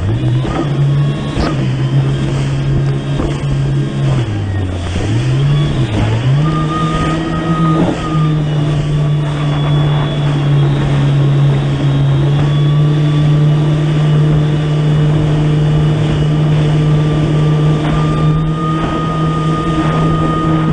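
Kawasaki Ultra 300X jet ski's supercharged four-cylinder engine running at speed over rushing water and wind. Its pitch dips about four to six seconds in as the throttle eases and the speed drops, then climbs back and holds steady.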